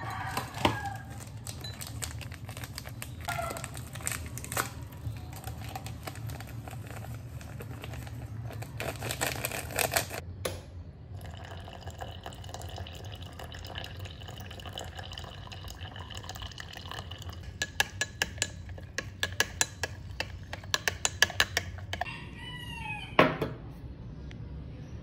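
Kitchen drink-making sounds. A glass is set down on a countertop, with light clinks. A countertop water dispenser runs with a steady tone for about six seconds as it fills the glass. Then a metal spoon clinks rapidly against the glass while stirring, and one louder glass clink comes near the end.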